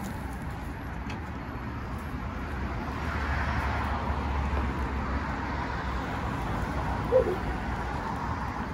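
Outdoor street ambience with the low rumble of a passing car swelling about three seconds in, and a single short dog whine near the end.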